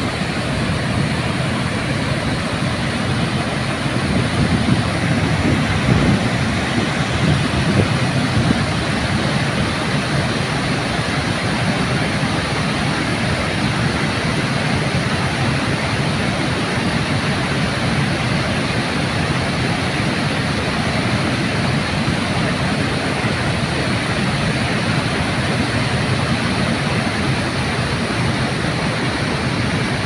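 Water pouring over a wide concrete weir and crashing into the foaming pool below: a loud, steady rush, swelling a little a few seconds in.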